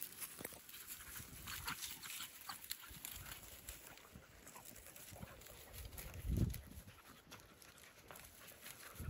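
Faint sniffing and rustling of beagle rabbit hounds working through dry grass and brush, with scattered small crackles. A brief low thump about six seconds in.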